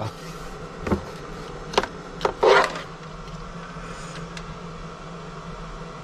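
Water being stirred in a plastic jerrycan around an immersion heater: a few light knocks and a short swish of water, over a steady low buzzing hum.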